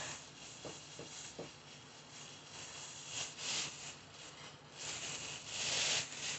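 Soft rustling of a white cloth being unfolded and handled by hand, with three faint ticks about a second in and louder spells of rustling about three seconds in and again from about five seconds in.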